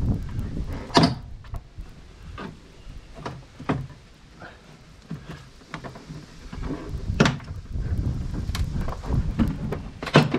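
Plastic tailgate interior trim panel of a Ford Kuga knocking and clicking as it is tugged by hand to pop its retaining clips free. The clicks are irregular, with sharp ones about a second in and near the end.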